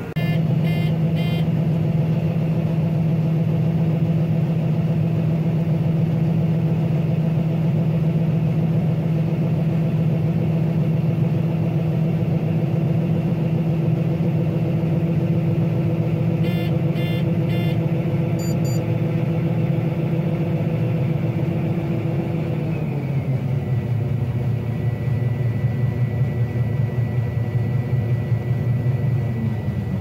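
Combine harvester running steadily, heard from inside the cab, with an even engine-and-machinery drone while it unloads grain through its auger. About three-quarters of the way through, the drone drops to a lower pitch and a thin steady high whine comes in. A few short high chirps sound near the start and again around the middle.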